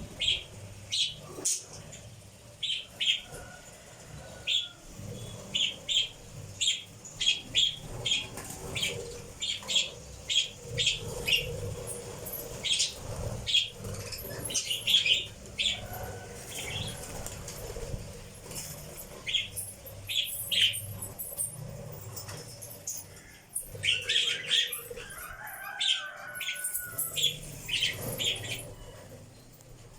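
Pet lovebirds chirping: short, high chirps repeated about once or twice a second, coming more thickly for a few seconds near the end.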